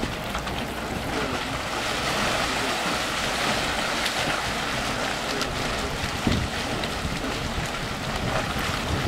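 Dragon's Mouth Spring, a Yellowstone hot spring, churning: hot water surging and sloshing in the mouth of its cave as steam vents out, a steady rough wash with a louder low surge about six seconds in.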